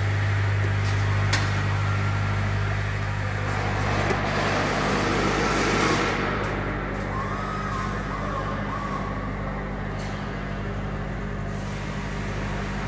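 Steady low electrical machinery hum of a factory assembly shop, with a few sharp metallic clicks and a louder rushing noise that swells and fades between about four and six seconds in.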